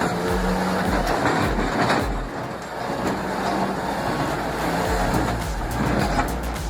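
Heavy machine's engine running steadily, mixed with background music that has a regular low beat.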